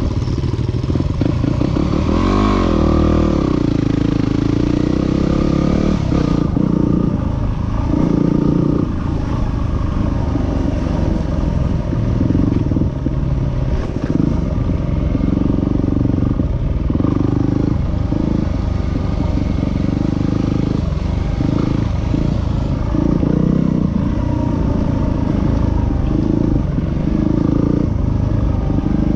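A vehicle engine running continuously, its pitch rising and falling with the throttle, with a quick rev-up about two to three seconds in.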